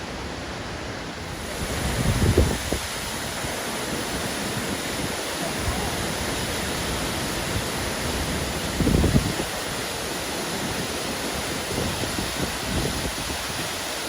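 Waterfall rushing, a steady even roar of falling water, broken twice by brief low bumps like wind buffeting the microphone.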